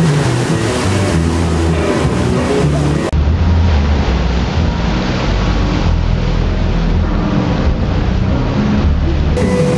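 Background music over the rush of a boat's wake and its engine, with an abrupt change in sound quality about three seconds in.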